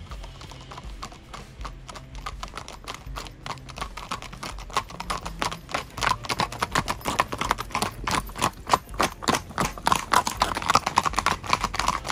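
Hooves of several ridden horses striking a paved road in a quick, busy clatter, getting much louder about halfway through as the horses come close and pass.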